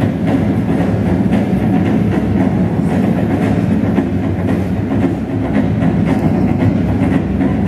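Figure-skating programme music played loudly over an ice rink's sound system, dense and steady with a fast clattering beat.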